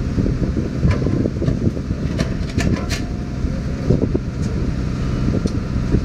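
Heavy construction machinery's diesel engine running steadily with a low rumble while a concrete sheet pile in its steel frame is lifted on the crane cable, with a few light metallic clinks about one to three seconds in.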